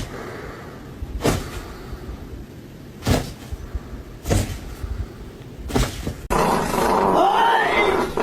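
A dog vocalizing: four short growling bursts over a low rumble, then, after an abrupt change about six seconds in, louder drawn-out wavering yowls that rise and fall in pitch.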